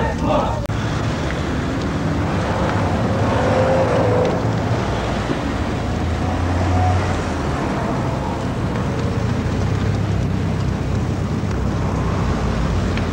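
Steady low rumble of road traffic mixed with wind buffeting the microphone.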